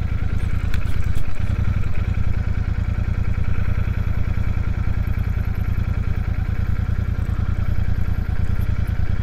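Royal Enfield Super Meteor 650's parallel-twin engine running steadily as the motorcycle rolls along slowly.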